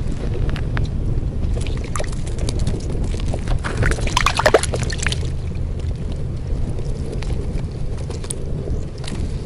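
Steady wind rumble on the microphone, with scattered crunching clicks of ice and slush around a fishing hole. About four seconds in comes a brief louder crackling splash as a smelt is pulled up through the ice hole.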